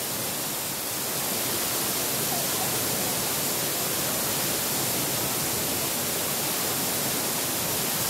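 Waterfall pouring into a pool: a steady, even rush of falling water.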